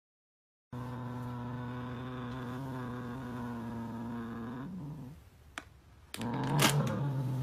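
A cat growling low and steady, a warning to the hand reaching for the treat bag it is guarding. The growl breaks off about five seconds in, then starts again near the end with sharp crackles of the plastic treat bag.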